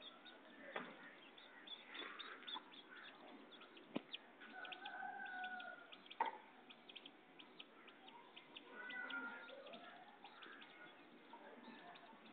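Faint chicken calls: a drawn-out call about four and a half seconds in and another about nine seconds in, with a sharp knock just after six seconds.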